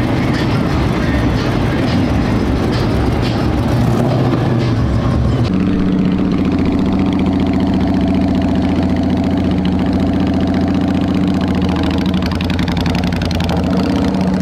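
Vehicle engine noise, then from about five seconds in a bobber motorcycle's engine running steadily at low speed through long straight exhaust pipes as it rolls by.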